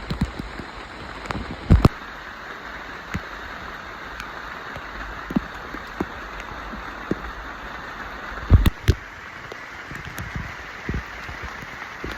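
Steady rain from a typhoon, a continuous hiss, with scattered short low thumps, the strongest near the start and again past the middle.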